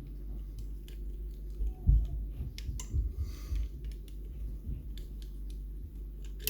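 Small metal clicks and taps from steel levers being handled and lifted out of an opened Yale 5-lever mortice lock, with a louder dull knock about two seconds in and a brief scrape a little later.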